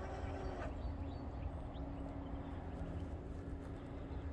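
Trackside ambience: a steady low rumble with a faint continuous hum, and a few faint short high chirps.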